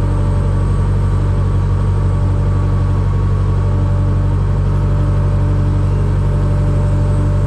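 Aircraft pushback tug's engine running steadily, a loud, even low drone, with a faint tone above it that breaks on and off.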